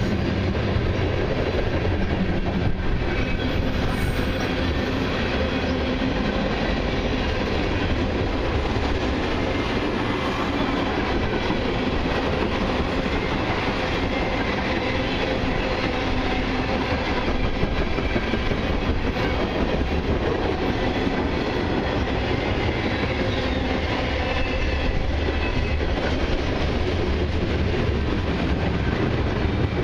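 Freight train cars, mostly tank cars and covered hoppers, rolling past: a steady rumble and rattle of steel wheels on the rails.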